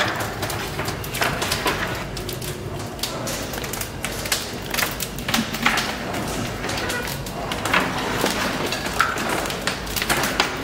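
Irregular knocks and clatter of timber being fed into a Galloway boiler's firebox, the wood striking the grate and the iron fire door as the fire is stoked.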